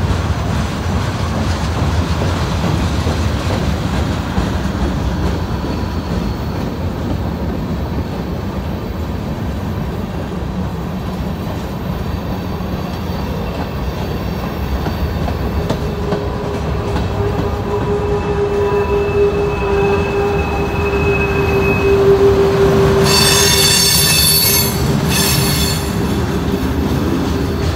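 Freight train cars rolling past close by, with a steady rumble of steel wheels on the rails. About halfway through a wheel squeal sets in as a steady tone. A louder, shrill squeal follows about two-thirds of the way in and lasts a couple of seconds.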